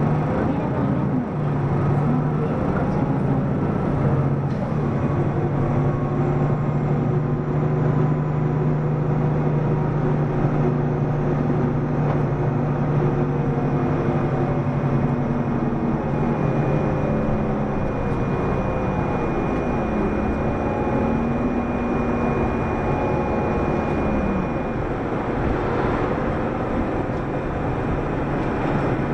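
Mitsubishi Fuso Aero Star (PDG-AA273KAN) city bus under way, its diesel engine and drivetrain heard from inside the bus. The engine note holds steady for more than half the time, then shifts and falls off about three-quarters of the way through as the bus changes speed.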